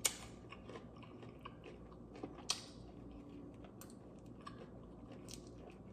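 Close-up mouth sounds of someone eating fried chicken wings: quiet chewing and smacking with scattered small clicks and crunches, the sharpest at the very start and about two and a half seconds in.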